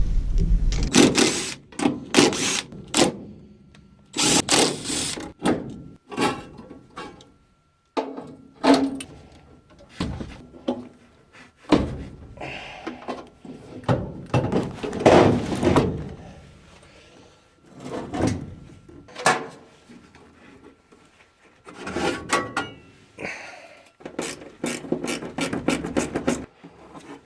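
Irregular metal clanks, knocks and scrapes of tools and sheet-metal furnace parts being handled while the burner assembly is taken apart. A low rumble stops about a second in.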